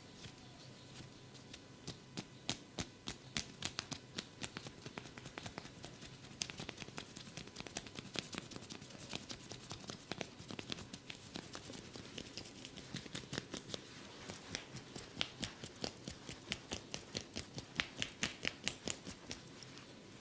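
Barber's hands working over a person's head and back during a massage: a long run of quick, light clicking taps, several a second, coming in bursts.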